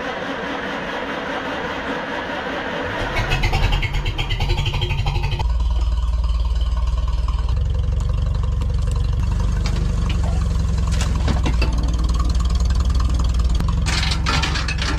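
Farmall tractor engine coming in about three seconds in with a low, pulsing rumble, then running louder and steady from about five seconds on.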